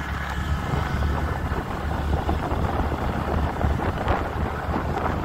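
Wind buffeting the microphone of a moving scooter: a steady low rumble, with the scooter's engine and tyre noise on the road beneath it.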